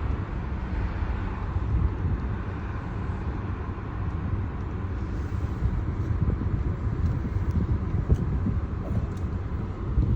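A steady low rumble with a rushing noise above it: the unexplained loud noise she is recording, which carries for blocks.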